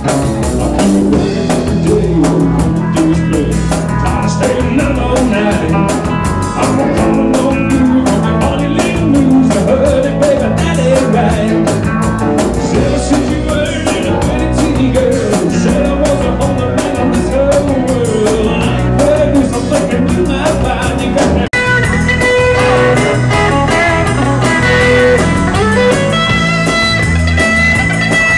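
Live rock band playing electric guitars over a drum kit. The music drops out for an instant about three-quarters of the way through.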